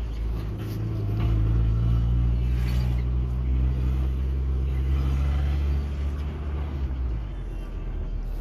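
Mercedes-Benz W123 300D's five-cylinder diesel engine running. It is revved up from idle about a second in, held at the higher speed, then let drop back near the end. The owner calls its noises terrible.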